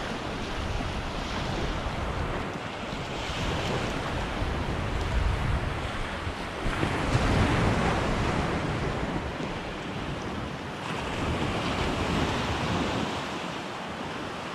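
Small surf washing up a sandy beach in swells that rise and ebb, with wind buffeting the microphone.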